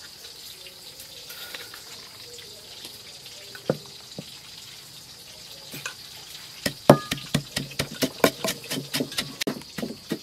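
Wooden pestle pounding chilli, garlic and seasonings in a wooden mortar: quick, even knocks with a dull thud, about five a second, starting a little past halfway. Before that there are only a few faint clicks as the seasonings go in.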